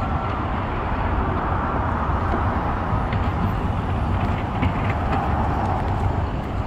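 City road traffic: cars passing with a steady low rumble of engines and tyre noise.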